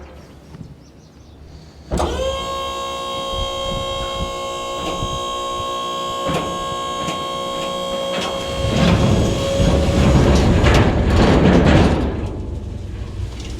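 A machine starts up sharply about two seconds in and runs with a steady high-pitched whine, with a few knocks over it. Near the end it gives way to a louder, rougher stretch of crunching noise.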